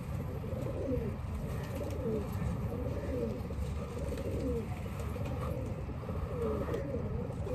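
Domestic pigeons cooing over and over, several calls overlapping.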